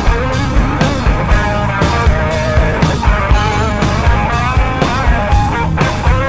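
Pop-rock band music: drums keep a steady beat of about two hits a second under electric guitar and a wavering melodic line.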